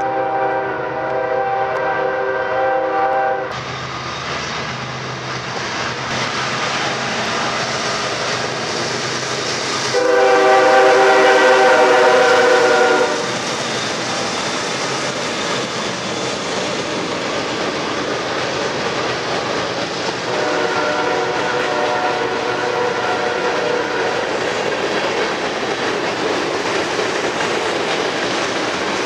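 Norfolk Southern freight train's GE diesel locomotives passing, their air horn sounding three times: a chord of about three seconds at the start, a louder one about ten seconds in, and a fainter, longer one about twenty seconds in. Between and under the horn blasts, the locomotives and then the tank cars clatter steadily over the rails.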